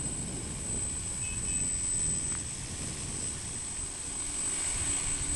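Tricopter's three electric motors and propellers buzzing steadily in flight, with a thin high whine.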